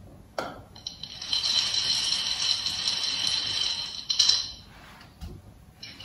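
A parrot makes a drawn-out, raspy, high-pitched sound lasting about three and a half seconds, with a short louder burst near its end. A fainter high sound starts again just before the end.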